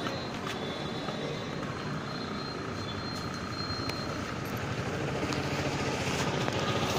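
Street traffic noise with a motorbike engine running, growing louder toward the end.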